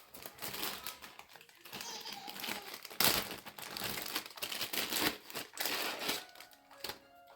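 Plastic packaging crinkling and rustling as it is handled, in irregular bursts, loudest about three seconds in. Background music with steady notes comes in near the end.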